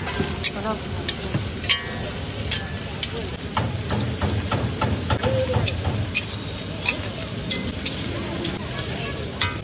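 Metal spatula scraping and clinking against a large metal wok as vegetables are stir-fried, with a steady sizzle under repeated sharp clinks.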